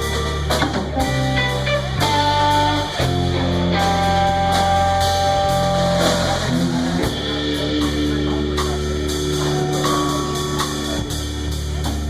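Band playing rock: guitar chords and held notes over bass and a drum kit keeping a steady beat.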